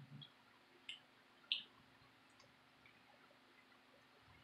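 Near silence with a few small wet clicks of someone eating with their fingers, two sharper ones about one and one and a half seconds in.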